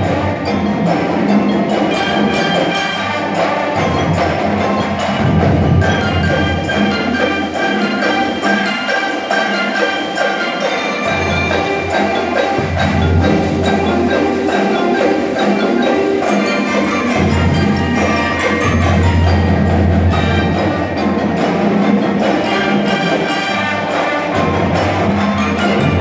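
High school marching band playing: brass and drums, with the marimbas and xylophones of the front ensemble prominent.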